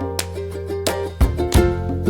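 Background music: an upbeat track of quick plucked-string notes over a steady bass.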